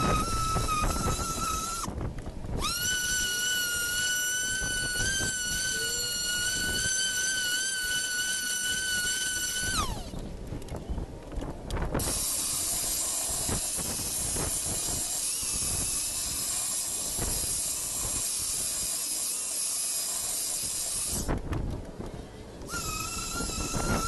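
Handheld electric power tool motor whining at a steady high pitch. It stops and spins back up near the start, then winds down and stops about ten seconds in. A long steady hiss follows, and the motor whine comes back near the end.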